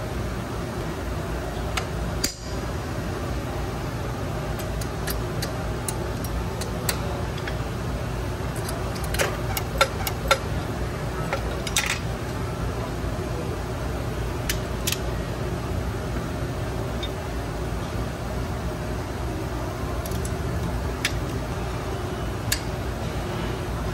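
Steady mechanical hum, with scattered sharp metallic clicks and clinks from hand tools and brake hardware being worked on a forklift drum brake, several close together about ten seconds in.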